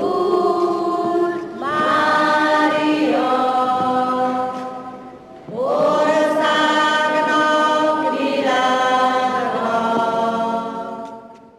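A group of voices singing together in slow, long-held notes, in phrases that break off and start again twice, fading out near the end.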